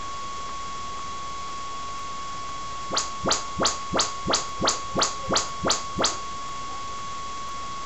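Audyssey room-calibration test chirps from a home-theatre surround speaker, driven by an Onkyo receiver during automatic speaker setup: ten quick sweeping tones, about three a second, starting about three seconds in and stopping about three seconds later. A steady hiss and a thin steady whine run underneath.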